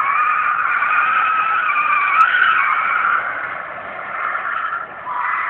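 A drifting car's tyres squeal as it slides sideways through a corner, with its engine running under the squeal. The squeal wavers, eases briefly near the end, then picks up again.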